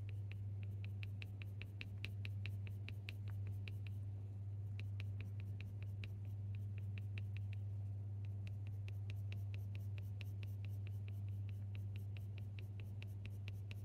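Colour pencil scratching on hot-press watercolour paper in quick, short flicking strokes, about four to five a second, with a brief pause about four seconds in. A steady low hum runs underneath.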